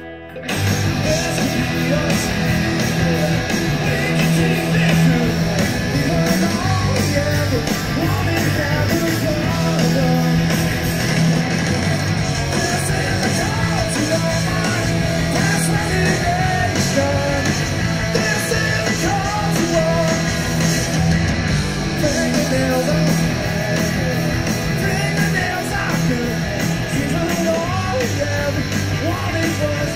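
Audience recording of a rock band playing live, loud and roomy: distorted electric guitar, bass and drums with a singer's voice. The full band crashes in about half a second in, after a quieter guitar passage.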